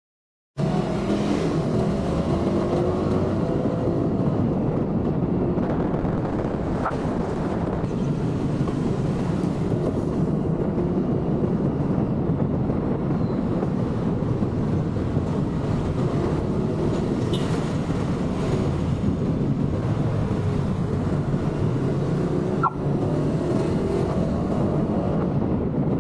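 Motorcycle riding on the road: steady engine and road noise that cuts in abruptly after about half a second of silence.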